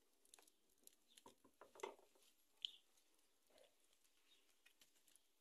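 Near silence with faint, scattered ticks and small pops from a wood cooking fire and a pot of simmering mole.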